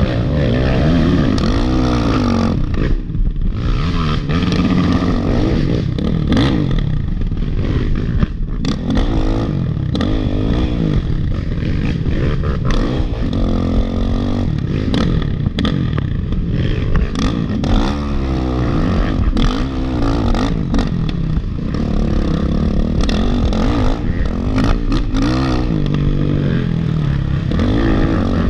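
Off-road racing motorcycle running hard on a rough trail, its engine revving up and falling back again and again, with frequent clattering knocks from the bike over the terrain.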